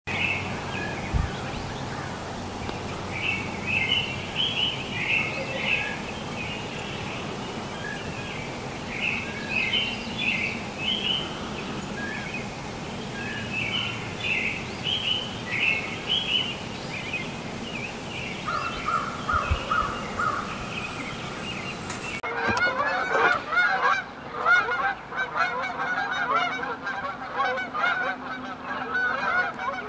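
Small birds chirping with short, high, scattered calls for roughly the first twenty seconds. Then a flock of geese flying overhead honking, with many overlapping calls that carry on to the end.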